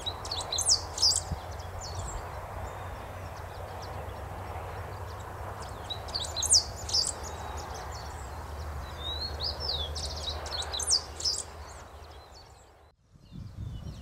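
Great pampa-finch (verdón) singing: three short bursts of very high-pitched notes, a few seconds apart, over steady background noise.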